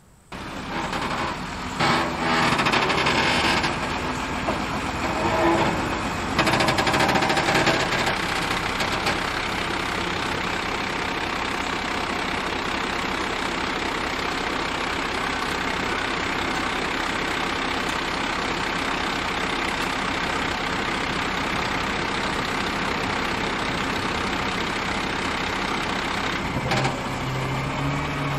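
Dump truck's diesel engine running steadily while its raised bed tips out a load of dirt, with louder rushing and rumbling in the first several seconds. Near the end the engine note steps up.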